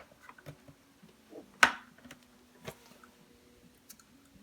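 A few sharp clicks from a cable being plugged into the AKAI MPK Mini keyboard, the loudest about a second and a half in and a lighter one near three seconds, over a faint steady hum.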